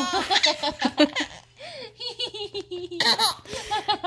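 A baby giggling and laughing, with a woman laughing along, in short bouts with a brief lull partway through.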